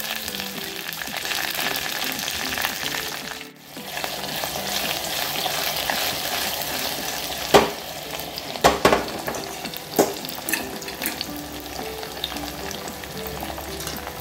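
Garlic, green chillies and curry leaves sizzling in hot oil in a steel pot, a tempering (phodni) for kadhi. In the second half a spatula stirs them, knocking sharply against the pot several times.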